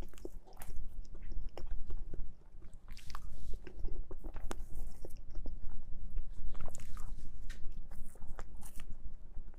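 Close-up eating sounds of a mousse cake being chewed: irregular wet mouth clicks and smacks.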